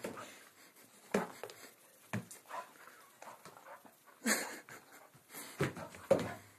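A dog chasing a laser dot on a carpet: breathing hard, with irregular short sudden sounds from its lunges and pounces, the loudest about four and six seconds in.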